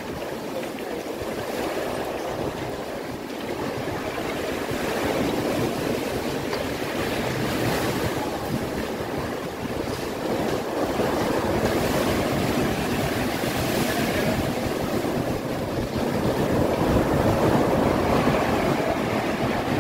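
Sea waves washing against a rocky shore, a continuous rushing surf with wind on the microphone, growing louder in the last few seconds.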